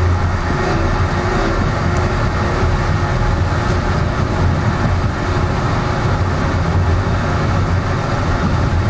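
Toronto Yonge line subway train running at speed on open-air track: a steady low rumble and hum of wheels on rails and traction motors, heard from inside the moving train.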